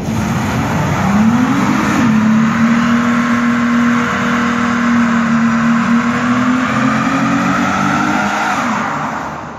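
Dodge Charger doing a stationary burnout: the engine revs up about a second in and is held at high revs while the rear tyres spin and squeal. The revs drop near the end.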